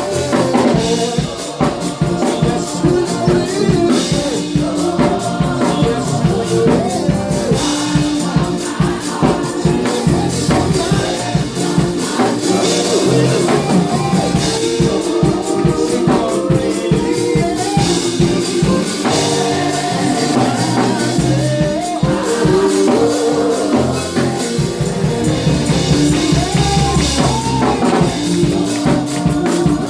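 Live gospel praise-and-worship music: a band with drum kit and tambourine playing a steady beat, with singing mixed in.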